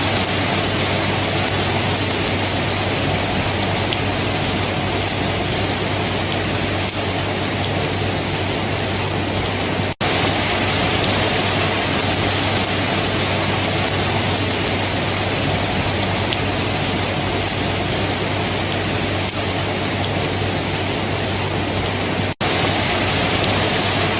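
Steady heavy rain, a dense even hiss of falling water, that cuts out for an instant twice.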